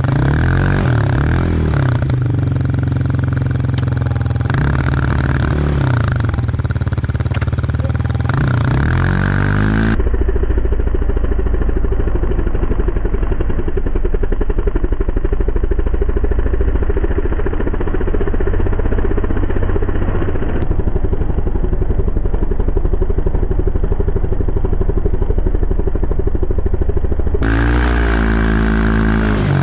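Gas snowblower engine running steadily, its pitch dipping and rising a few times.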